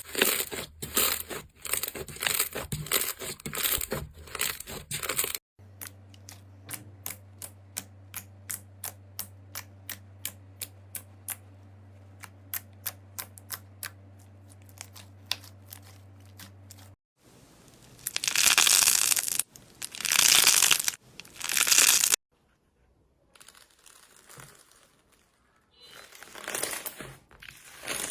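Slime being handled in a string of short clips: dense crackling and popping, then a run of even clicks about two and a half a second over a faint hum, then loud crinkling and tearing bursts as it is pulled apart.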